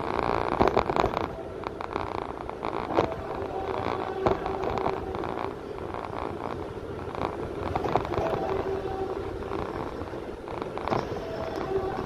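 Ride noise inside a moving vehicle: a steady rumble with sharp knocks and rattles, the loudest near the start and about three and four seconds in.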